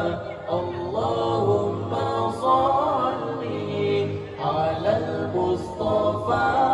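Nasyid group of male voices singing a cappella into microphones, several voices together in a melismatic, chant-like melody.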